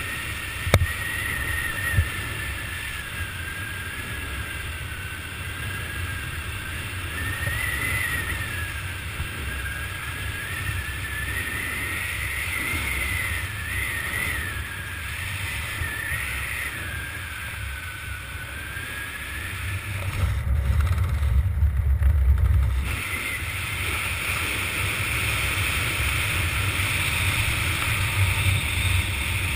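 Steady wind rushing over a helmet camera's microphone while flying under an open parachute canopy, with a faint high whistle that wavers in pitch. There are two sharp clicks near the start, and a stronger gust of low wind rumble about two thirds of the way through.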